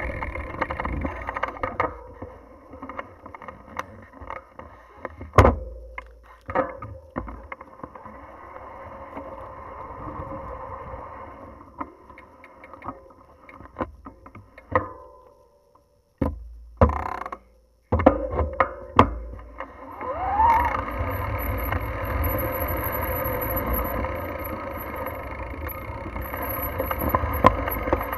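Bicycle rolling along a rough paved lane: wind buffeting the microphone and tyre-on-asphalt noise, with sharp knocks and rattles over bumps. The sound drops out briefly about two-thirds of the way in.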